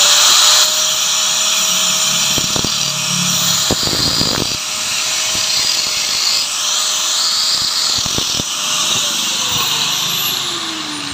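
Angle grinder with a cut-off disc cutting into the metal magneto flywheel of a Yamaha Mio scooter, trimming the pulser trigger bump: the grinder runs at steady speed with a harsh, high grinding hiss and a few sharper bites as the disc meets the metal. Near the end the disc comes off the work and the grinder spins down.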